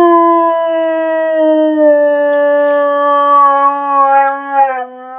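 A dog howling in one long, loud, sustained howl. Its pitch sags slowly throughout and dips at the very end as the howl trails off.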